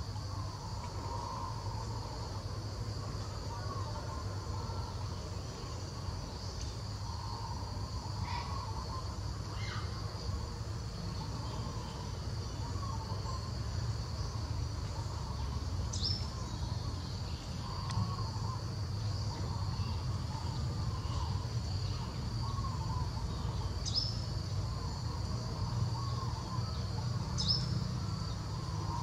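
Outdoor tropical ambience: a constant high buzz of insects, with a softer warbling chatter in the background and a few short, high, falling chirps, over a steady low hum.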